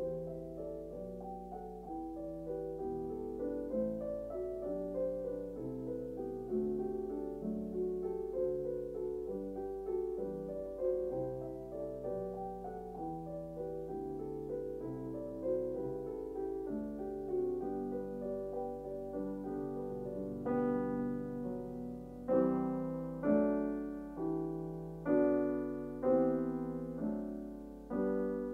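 Background piano music: a gentle run of notes, turning to louder, separate struck chords about once a second near the end.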